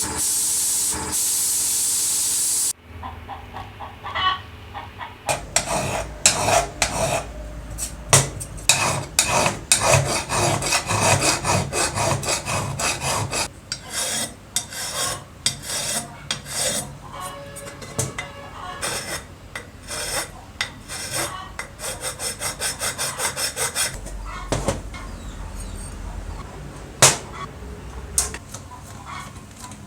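A steady spray hiss cuts off about three seconds in. It is followed by rapid, irregular hand rubbing and rasping strokes on a part, like sanding or filing, with a sharp click near the end.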